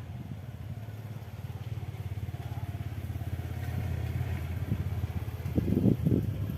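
A motorcycle engine running with a low, fast-pulsing rumble that grows steadily louder, with louder gusty bursts near the end.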